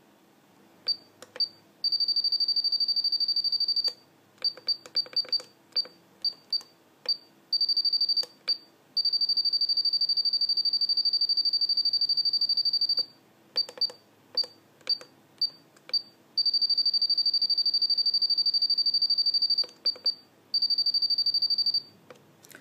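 Futaba T8J radio-control transmitter beeping as its keys are pressed to set throttle-curve points. Single short high beeps come at each press, and there are several long runs of fast repeated beeps, each lasting a few seconds, while a key is held to step a value up or down.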